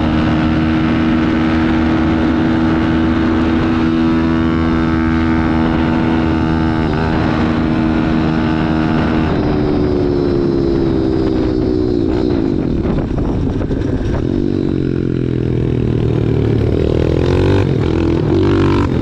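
Pit bike's single-cylinder four-stroke engine running steadily at cruising speed, then falling in pitch as the bike slows about halfway through, and rising again near the end.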